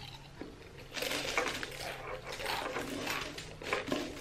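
Close-miked crunching of potato chips being chewed, a dense crackle of small cracks that starts about a second in.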